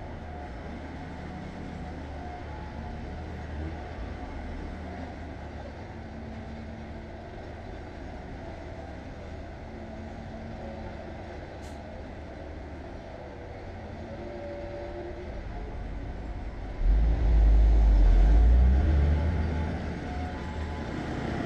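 Heavy vehicle engine running steadily, with a sudden much louder deep rumble for about three seconds near the end.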